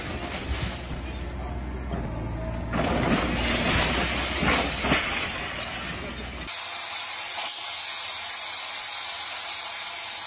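Excavator tearing down a house: machine rumble under repeated cracking and crashing of breaking walls and falling debris. About two-thirds of the way through, the low rumble cuts off suddenly, leaving a steady hiss.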